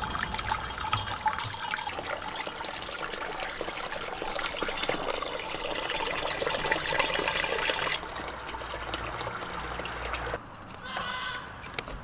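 Fermented rosehip mash and juice poured through a stainless steel sieve into a plastic fermenting drum, splashing steadily. The pouring stops suddenly about eight seconds in, leaving fainter handling sounds.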